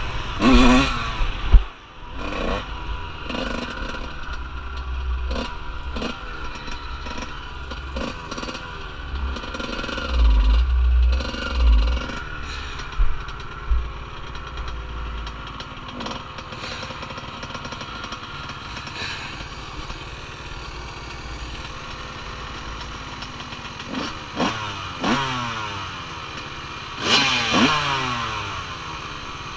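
Off-road vehicle engines running on a dirt trail, the revs rising and falling again and again. There is a sharp loud knock about a second and a half in, and a dirt bike revs close by near the end.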